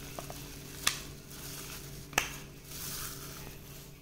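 A spoon working ground masala paste onto minced mutton in a steel bowl, with soft squishing and two sharp clinks against the bowl, about a second in and again just past two seconds.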